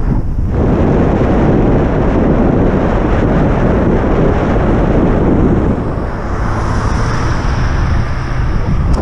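Wind buffeting the microphone of a camera on a moving bike, a loud steady rush and rumble with no speech.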